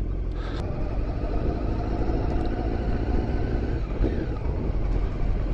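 Motorcycle engine running steadily at low speed, heard through a helmet microphone with the visor up, with a steady rush of wind and road noise.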